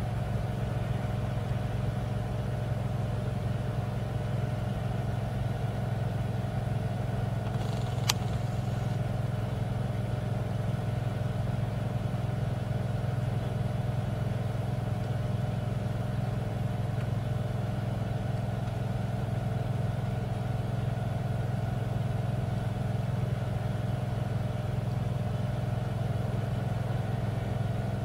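Heavy truck diesel engines running steadily under load as one truck, via an excavator's bucket, hauls another up an icy slope; a single sharp click sounds about eight seconds in.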